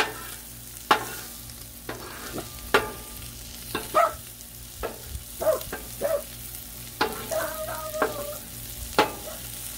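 Tri-tip steaks sizzling in ghee on the steel top of a Blackstone griddle, with a few sharp clicks of a metal spatula against the griddle.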